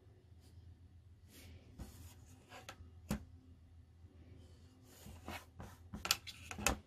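Marking pen drawing a seam-allowance line on cotton fabric: short scratchy strokes, with a few sharp clicks about three seconds in and near the end, over a faint steady low hum.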